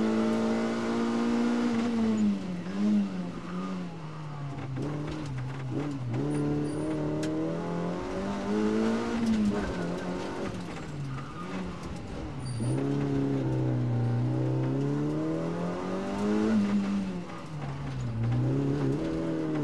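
Rally car engine heard from inside the cabin, its revs climbing and dropping repeatedly as it accelerates, changes gear and slows for corners.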